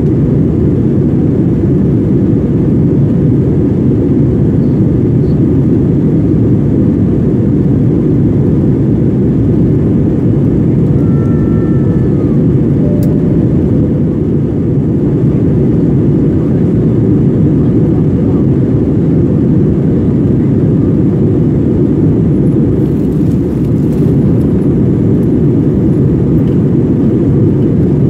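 Steady roar of jet engines and rushing air heard inside the cabin of an Airbus A321 airliner in flight: a loud, even, low rumble.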